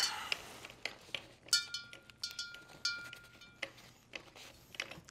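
Metal chain links clinking against each other as a wet, freshly derusted chain is wiped down with a cloth, with a cluster of light clinks in the middle.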